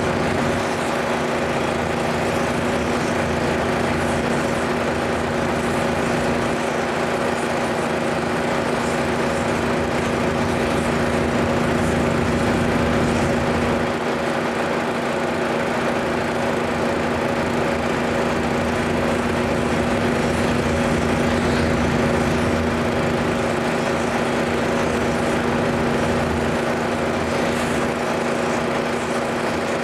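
Engine of a pressure washer running at a steady high speed, a constant droning hum with a hiss over it.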